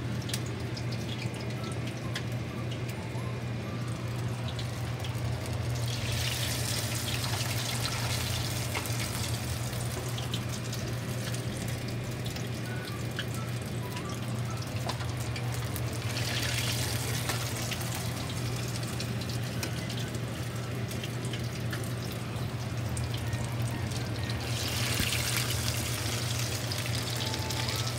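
Batter-coated potato pinwheels deep-frying in hot oil in a pan: a steady sizzle full of tiny crackles over a low hum. The hiss swells louder three times.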